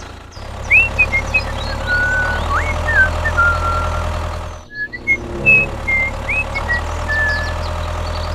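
Steady machine hum, as of a small vehicle engine running, with bird chirps and short whistles over it. The hum breaks off briefly just before five seconds in and then resumes.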